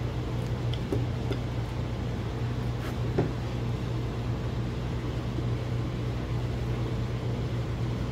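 Steady low hum of a running machine or fan in the shop, with a few light clicks and taps as the vent window's metal frame and glass are handled.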